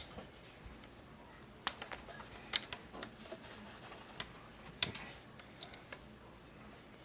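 Scattered light clicks and taps of hands handling the drive belt and metal parts of an Ampro Premier 30 projector while working the belt onto its pulleys and spring tensioner. The sharpest taps come about two and a half seconds and about five seconds in.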